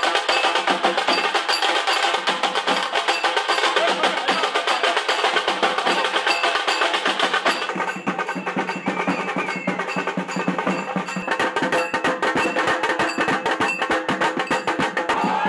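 Fast, percussion-driven music: rapid, dense drum strokes with bright clanging strikes. About halfway through, the highest sounds drop away.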